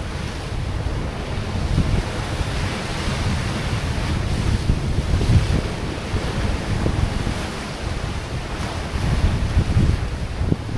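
Wind buffeting the microphone in uneven gusts over the steady wash of sea waves breaking on a rocky shore.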